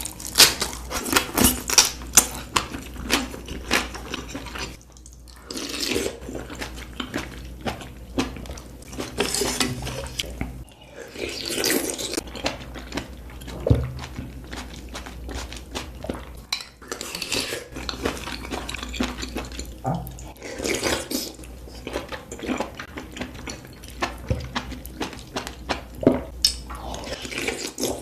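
Close-miked eating of a mushroom and vegetable hotpot: utensils clicking and clinking against the bowl, mixed with chewing, in a long run of short clicks and louder bursts of noise.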